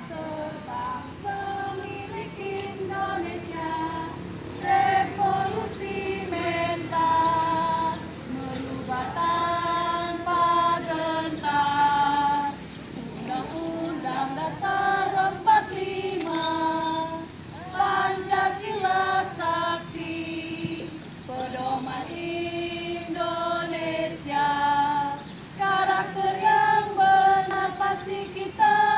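A choir of women's voices singing a march song together.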